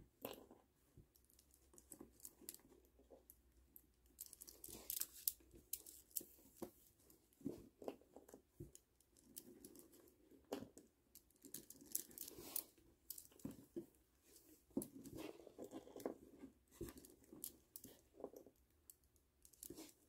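Faint, irregular clicks and rustles of plastic pony beads knocking together and string being drawn through them as a bead cuff is threaded by hand.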